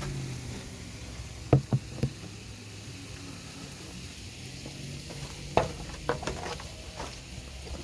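Shrimp frying in a skillet on a portable gas camp stove, with a steady sizzle. A few sharp knocks stand out: three in quick succession about a second and a half in, and several more around five and a half to six and a half seconds in.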